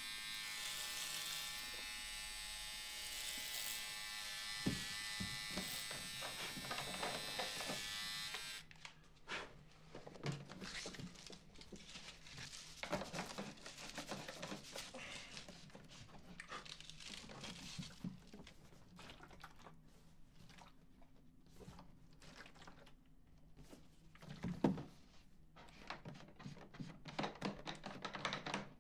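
A steady electric-sounding buzz with many overtones for about eight and a half seconds, cutting off suddenly. After it come quieter scattered clicks, taps and rustles of small objects being handled.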